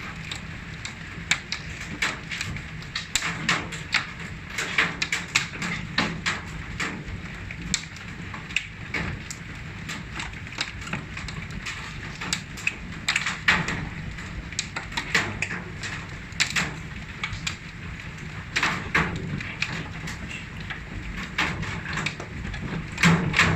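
Hailstones about marble-sized pelting down, a steady clatter over which individual stones strike hard surfaces with sharp, irregular knocks, some bouncing off a metal air conditioning unit.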